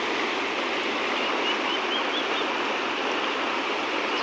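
River water rushing steadily, an even flowing noise, with a few faint short high chirps about halfway through.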